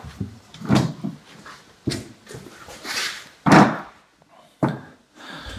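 Hard plastic drawer-system platform and frame pieces knocking and scraping as they are pulled apart and set down, a string of separate knocks about a second apart, the loudest about three and a half seconds in.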